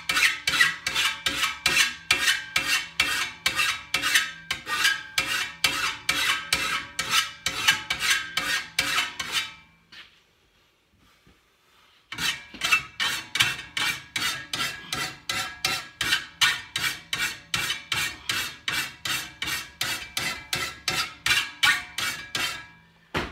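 A hand file rasping across the teeth of a steel brushcutter grass blade clamped in a vise, sharpening its cutting edges. The strokes are quick and even, about three a second, with a pause of about two seconds near the middle before the filing resumes.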